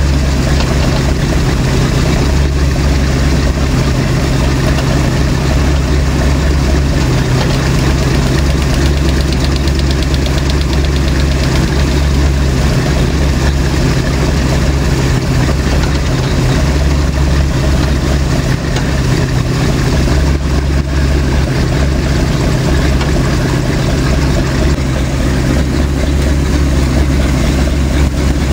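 Oldsmobile 455 V8 idling steadily, warmed up to operating temperature, while its hydraulic lifters are adjusted with the engine running.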